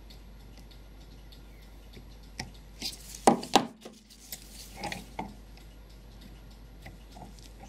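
Small metal clicks and clinks of pliers and fine tweezers working tiny C-clips off a brass clock movement, with two sharp clicks close together a little over three seconds in.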